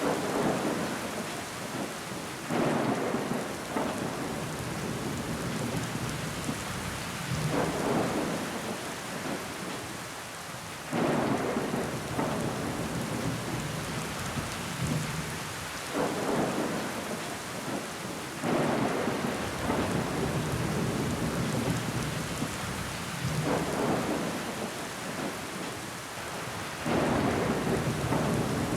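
Rain falling steadily against a window pane, with water running down the glass. A louder swell comes every few seconds, starting suddenly and fading.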